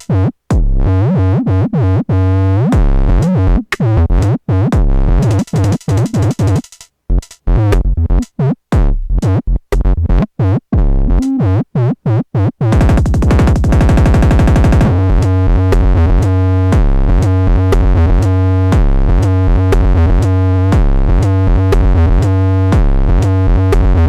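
Electronic noise music: stuttering, pitched tones chopped by abrupt silent gaps, then a dense buzz for about two seconds around the middle, followed by a steady, loud repeating pattern.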